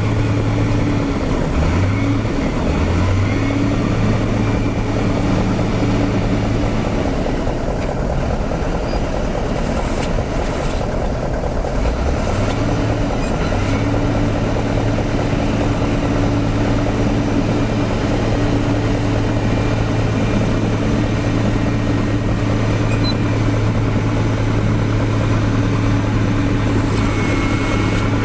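Diesel engines of heavy road-construction machinery running: a steady low hum over continuous machine noise, which breaks off for several seconds around the middle and then returns.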